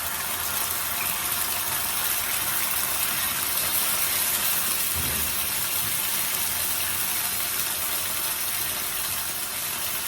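Canned sardines sizzling in a hot frying pan, a steady hiss.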